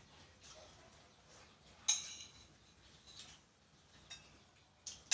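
Spoons clinking and scraping against plates while eating. A sharp ringing clink about two seconds in is the loudest, followed by a few fainter clinks.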